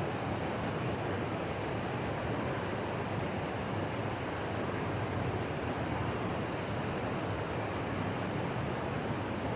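Waterfall pouring steadily, an even hiss of falling water with no breaks.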